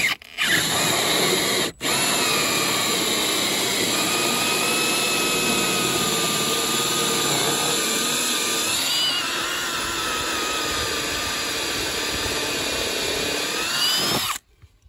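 Cordless drill turning a 1¼-inch (32 mm) hole saw, cutting through vinyl house siding into the wood behind. It stops twice briefly in the first two seconds, then runs steadily with a whine that wavers about halfway through, rises near the end and cuts off suddenly.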